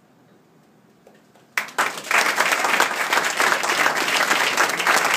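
A quiet moment after the song ends, then audience applause starts suddenly about a second and a half in and goes on as steady, dense clapping.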